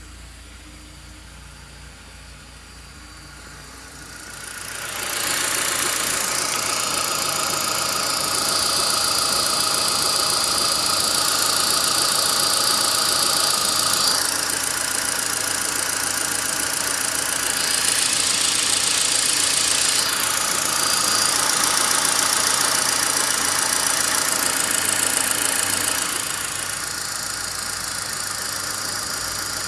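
Renault Clio 197's 2.0-litre four-cylinder engine running, quiet and low at first, then much louder and busier from about five seconds in, with a high steady whine through the middle. It carries the strange engine-bay noise that is under investigation.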